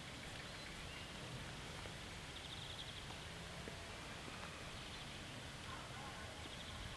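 Quiet outdoor background: a steady low rumble with a faint hiss, and a small bird's short high trill twice, about two seconds in and again near the end.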